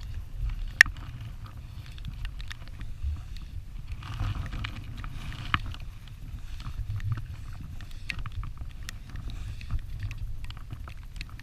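Wind rumbling on the microphone, with a scattering of small clicks and knocks and a sharper click about a second in.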